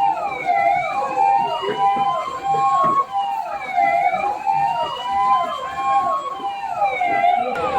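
Emergency vehicle sirens sounding together: a slow wail rising and falling about every three seconds, overlaid with a faster falling tone that repeats several times a second.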